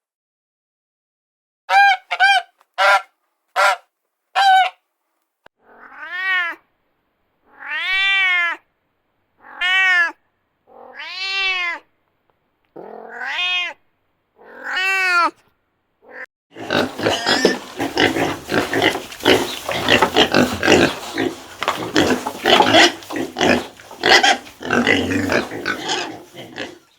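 Farm animal calls: a few short honking calls, then a series of longer calls that rise and fall in pitch. From about two-thirds of the way in, these give way to a dense, continuous jumble of noisy animal sounds.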